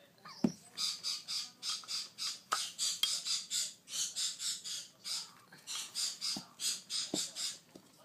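An African grey parrot chick gives a rapid series of short, raspy, high-pitched calls, about three a second, the rhythmic food-begging of a hand-fed chick. There is a single thump about half a second in.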